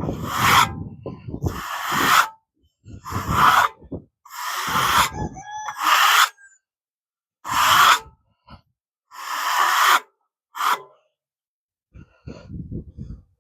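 Rotten bark and crumbling outer wood being scraped off a cedar log: a run of about eight separate scraping strokes, each under a second, with short pauses between, fainter near the end.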